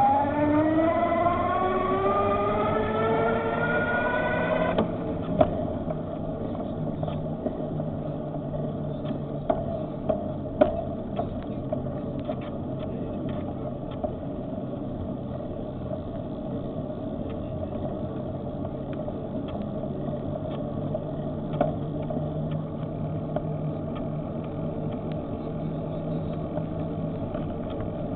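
Electric bike motor whining up steadily in pitch as the bike gathers speed, then cutting off abruptly about five seconds in. After that, steady wind and road noise of the ride with a low hum and scattered light clicks and rattles.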